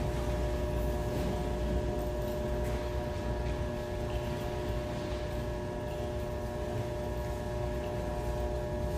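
Room tone: a steady low rumble with a constant hum of several steady tones, and a few faint scattered rustles and clicks.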